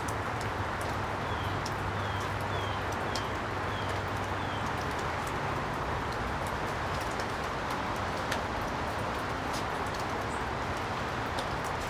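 Steady background hiss with a low hum, scattered light clicks of small parts being handled, and a bird giving five short falling chirps in the first few seconds.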